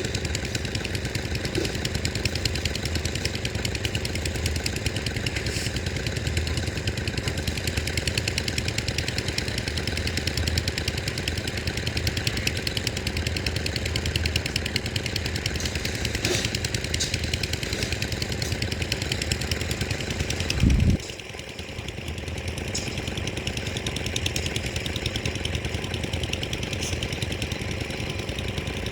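An engine running steadily with a fast, even knocking beat. There is one heavy low thump about 21 seconds in, and the running is a little quieter after it.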